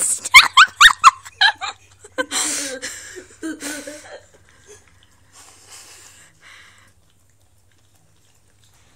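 Boxer dog vocalising: a quick run of short, rising whines in the first second, then a few breathy, noisier sounds that fade out by about seven seconds.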